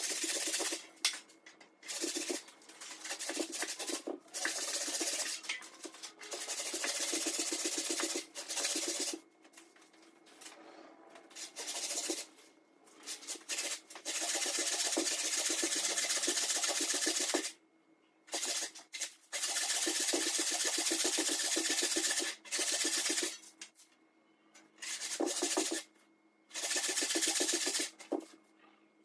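Old hand saw ripping lengthwise along the grain of a log: a rasping cut in runs of steady strokes, broken by short pauses.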